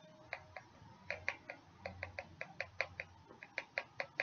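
Garlic powder being tapped out of its container into a teaspoon: a run of light, sharp clicks, about five a second.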